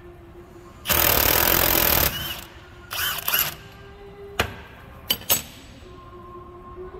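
Ryobi 18V cordless 1/2-inch impact wrench hammering for about a second, then two short bursts a couple of seconds later, followed by three sharp knocks.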